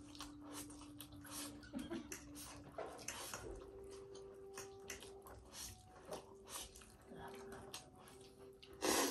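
Several people slurping and chewing spicy ramen noodles: a continual run of short, wet slurps, with a louder one near the end.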